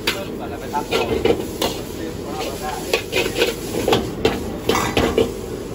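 Metal wok spatula scraping and clinking against a steel wok while stir-frying a nest of noodles, in irregular strokes over a steady frying sizzle.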